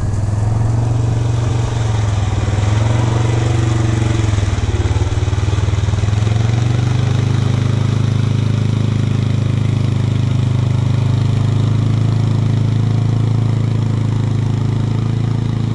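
ATV engine running steadily, a little louder and steadier from about six seconds in.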